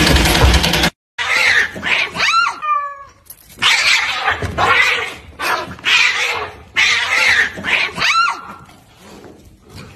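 Cats hissing and yowling at each other in a standoff: a run of short, sharp hisses broken by a few falling yowls. Before that, a printer's mechanism runs steadily and cuts off suddenly about a second in.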